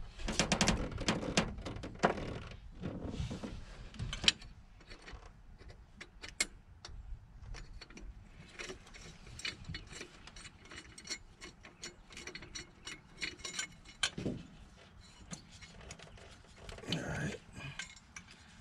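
Hand socket ratchet clicking in runs as short half-inch bolts are backed out of a throttle cable bracket, with a few louder metal knocks.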